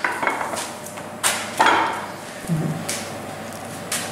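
About six sharp metallic knocks at irregular intervals of half a second to a second, each with a short ringing tail: metal parts of a steel-tube grill stand being knocked and handled.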